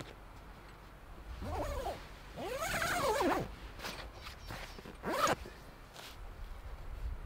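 Black cockatoos calling: three harsh, wailing calls that rise and fall in pitch, the longest about three seconds in.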